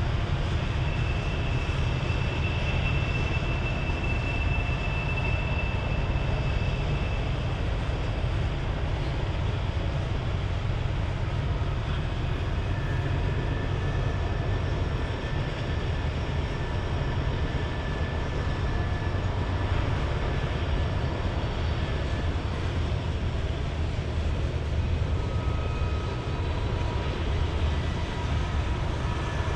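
BNSF coal cars rolling past on steel rails: a steady low rumble of wheels and cars, with faint drawn-out high wheel squeals now and then.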